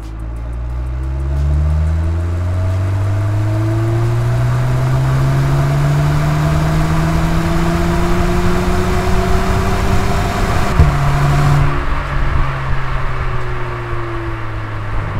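VW Polo GTI (AW) 2.0-litre turbocharged four-cylinder on its stock exhaust, pulling hard in third gear from about 1500 rpm: the engine note climbs steadily for about ten seconds. Near eleven seconds in the pitch drops suddenly, then eases down.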